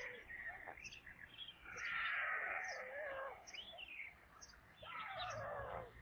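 White stork chicks begging at the nest with hoarse calls that glide up and down in pitch, loudest about two seconds in and again near the end. A small bird chirps high and evenly, about once a second.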